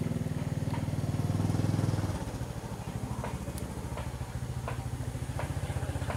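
A small engine running steadily, louder for the first two seconds and then a little lower, with a few sharp clicks over it from about three seconds in.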